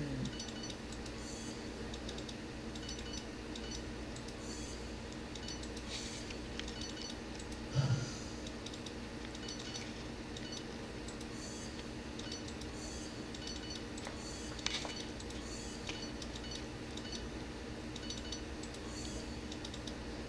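Quiet indoor room tone: a steady low hum with faint, irregular small clicks and ticks, and a brief low thump about eight seconds in.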